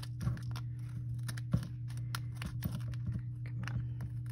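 Scissors snipping through a stack of paper pages, a run of short crisp cuts, trimming the overhanging edges of the pages stapled into a small booklet. A steady low hum runs underneath.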